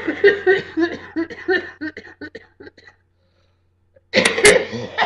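A person's wheezy coughing fit: a quick run of short, breathy coughs for about three seconds, then after a brief pause another hard burst of coughing near the end. The coughing is the sign of something caught in the chest.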